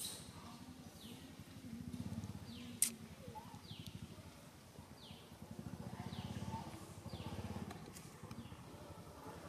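A bird's short, high, falling call repeated roughly once a second, over a low rumble that swells and fades twice, with a single sharp click about three seconds in.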